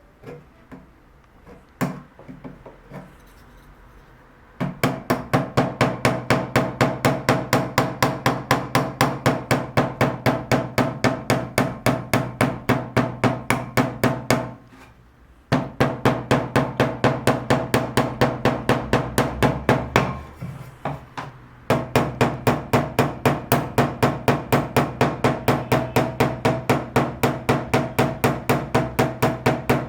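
Hammering in a fast, very even rhythm of about four blows a second, each strike ringing, after a few scattered knocks; the run breaks off twice briefly and resumes.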